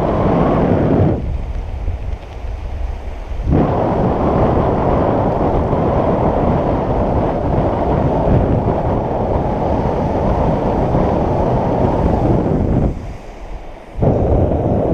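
Strong wind buffeting the camera microphone: a loud, low rumble that drops away abruptly about a second in and again near the end, then returns.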